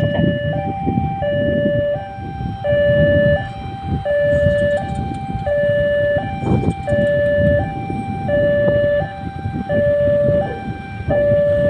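Railway level-crossing warning alarm sounding for an approaching train: an electronic two-tone signal alternating steadily between a high and a low note, each held under a second, over a low rumbling noise.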